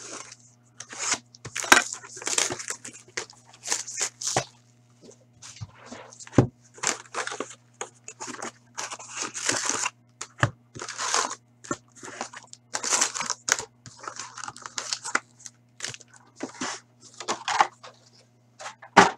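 Shrink-wrap and a cardboard box being torn open, then foil-wrapped trading-card packs crinkling and rustling as they are pulled out and stacked, with a few soft knocks as they are set down.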